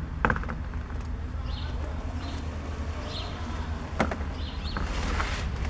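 A few sharp clicks of small carburetor parts being handled, one just after the start and one about four seconds in. Short bird chirps repeat every second or so over a steady low hum.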